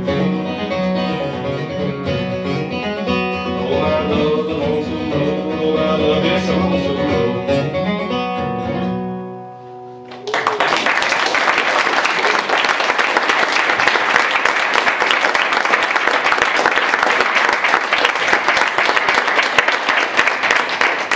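Bluegrass flatpicking on a steel-string acoustic guitar, ending with a last chord that rings out and fades about nine seconds in. About a second later an audience breaks into applause that carries on steadily.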